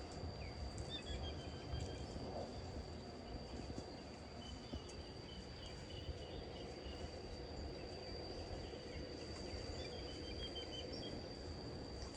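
Lakeside ambience: a steady high-pitched insect drone, with short runs of bird chirps three times. Underneath is a low, even rumble of distant traffic.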